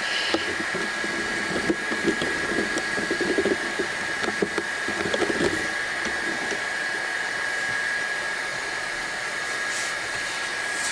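Kingroon 3D printer's cooling fans running steadily with a thin high whine while the hotend preheats. Scattered light clicks and rustles of handling in the first half.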